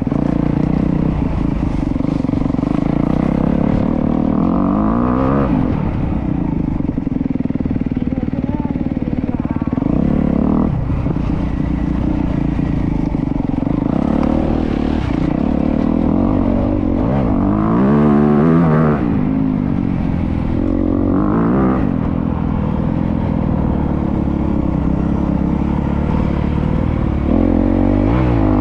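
Honda CRF250R's single-cylinder four-stroke engine running while ridden, its pitch rising and falling several times as it is revved through the gears.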